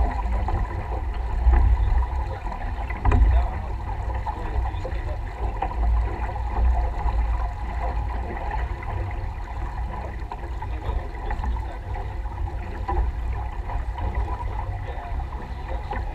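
Wind buffeting the microphone in an uneven low rumble, over the steady rush of water along a sailboat's hull, with an occasional faint knock.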